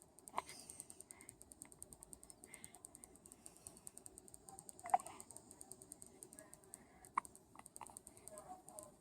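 Faint, sudden hiccups from a baby, a few seconds apart, the clearest about five seconds in. A fast, faint ticking runs under them.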